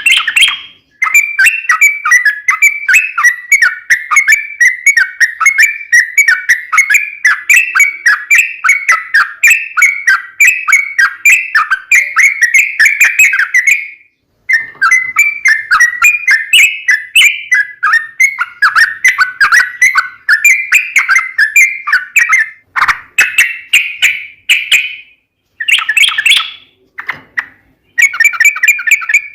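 Yellow-vented bulbul (trucukan) singing a long, rapid rolling song of repeated bubbly chirps. One unbroken run lasts over ten seconds and is followed by a second long run and then shorter phrases.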